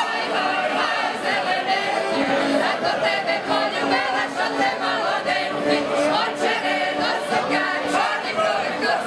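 Mixed choir of women's and men's voices singing a Ukrainian folk song together.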